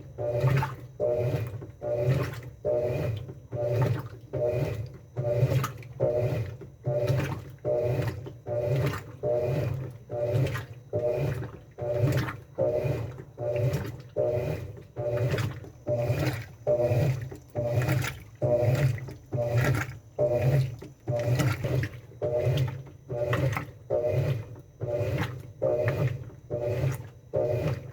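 Top-loading washing machine with a central agitator, churning water and clothes back and forth in the wash cycle. It goes in steady, even strokes of about three every two seconds.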